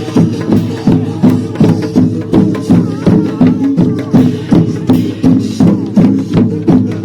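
Loud dance music played for square dancing, with a steady percussive beat of about two to three strokes a second.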